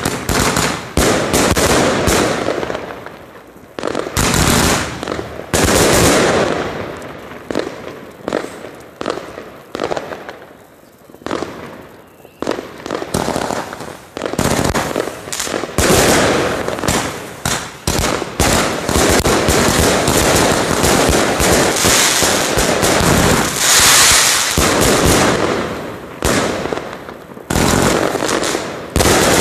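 A 228-shot consumer fireworks cake (Katan Event box) firing: rapid launches and bursting shells with crackle, in waves that thin out briefly and build again, densest in the second half.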